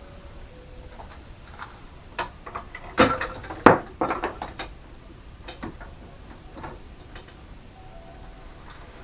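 A run of sharp clicks and clacks of small hard objects being handled, as of tools or drill bits on a workbench, bunched in the middle with two loudest knocks there.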